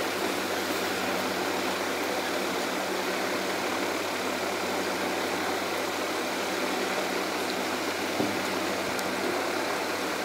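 Steady mechanical hum with an even hiss over it, unchanging throughout, with one small tap about eight seconds in.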